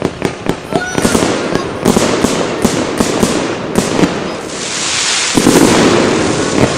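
Fireworks going off: a rapid run of sharp bangs, about three a second, then a dense, continuous crackle that grows louder near the end.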